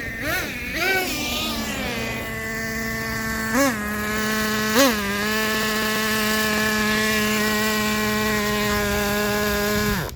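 Traxxas T-Maxx's TRX 2.5 nitro two-stroke engine, freshly rebuilt, running with a high buzzing note: a few throttle blips at first, then it holds steady with two more short blips, and it stops abruptly near the end.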